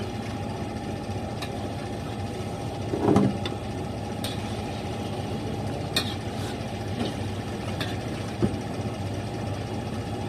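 A metal utensil stirring in a large wok on a gas stove, with scattered clinks and one louder, duller knock about three seconds in. Under it runs the steady drone of a kitchen fan.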